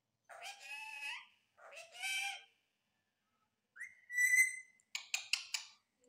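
Indian ringneck parakeet mimicking speech in two short phrases, then giving a whistle that rises and holds one pitch about four seconds in, followed by a quick run of four sharp short calls.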